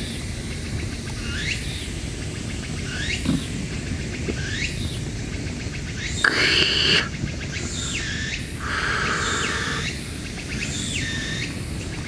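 Draft beer running from a portable beer server's tap into a glass mug: a loud hiss about halfway through, then a softer hiss a couple of seconds later. Behind it, a high rising chirp repeats about every second and a half.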